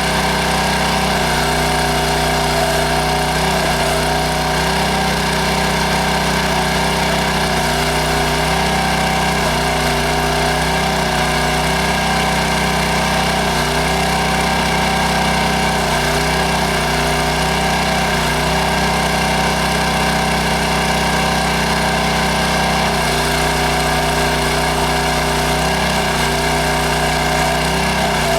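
Small engine of a Princess Auto towable backhoe running steadily, with tones that dip and recover in pitch every few seconds while it digs.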